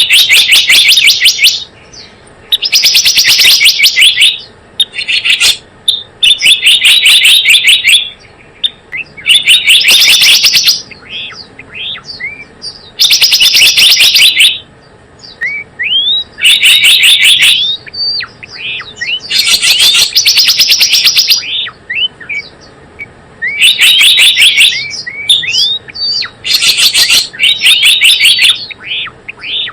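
Recorded lure calls of the gelatik bloong bird: loud bursts of rapid, chattering high notes, each about a second long and repeated every two to three seconds. Fainter thin rising whistles come in between.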